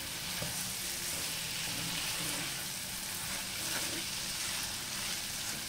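Chopped vegetables frying in oil in a cast-iron pan, a steady sizzle, while a wooden spoon stirs and scrapes them around the pan.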